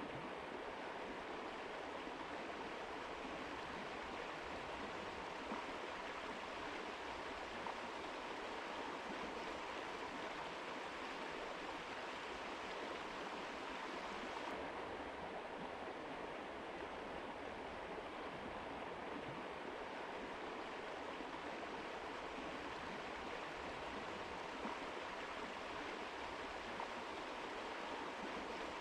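Mountain river water rushing over rocks, a steady, even rush with no breaks. About halfway through, the highest part of the hiss drops slightly and the sound turns a little duller.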